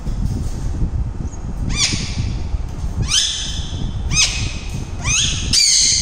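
Blue Indian ringneck parakeet squawking: four short, sharp calls that rise in pitch, about a second apart from about two seconds in, then a longer, louder call near the end.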